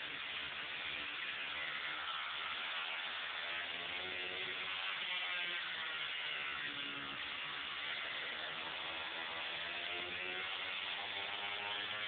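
Motorcycle-engined Westfield Megablade at speed on a sprint run, its Honda CBR1000RR Fireblade inline-four engine note rising and dropping several times as it works through the gears, largely under a steady rush of wind noise on the open cockpit's camera.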